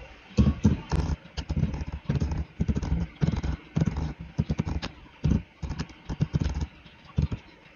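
Computer keyboard typing: irregular runs of key clicks as numbers are entered, stopping near the end.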